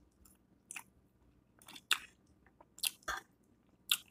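A person chewing food close to the microphone, with irregular mouth clicks and smacks.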